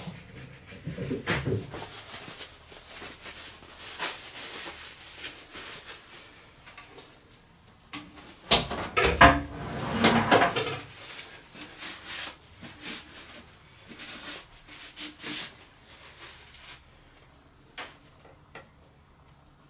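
Scattered knocks, clicks and rustling of parts and tools being handled during assembly, with a louder run of clatter about nine to ten seconds in.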